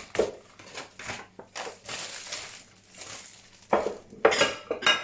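Glass baking dishes and their lids being unpacked and handled: rustling of packaging, then a few sharp glassy clinks and clatters near the end.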